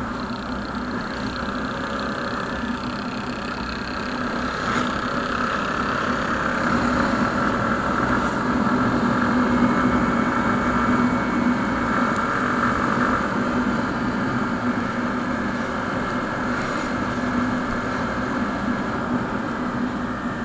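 Motorcycle engine running steadily while under way, with wind and road noise. It swells somewhat louder through the middle.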